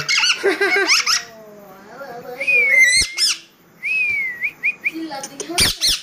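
Rose-ringed parakeet calling: several whistled notes that glide down and back up, a few shorter chirps, and a sharp squawk near the end.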